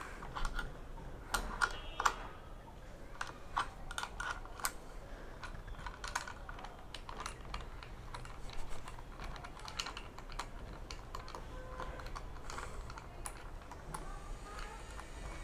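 Irregular small clicks and taps of an open-end spanner working the bolt of an LED auxiliary light's mounting bracket on a motorcycle, with parts knocking as the light is handled.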